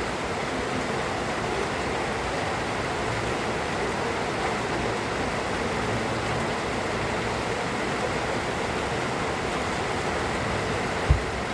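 Moderate rain falling steadily, an even hiss with no letup. One brief low thump near the end.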